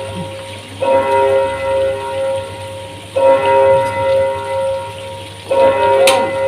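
A bell-like signal tone sounding in long, steady notes of the same pitch, about every two and a half seconds. There is a sharp click near the end.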